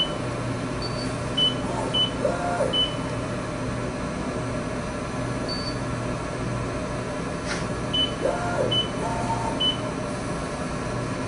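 A CNC video measuring machine running under program as it moves to pick up its touch probe from the probe changer. There is a steady hum, two brief motor whines that rise and fall, and short high electronic beeps in two clusters.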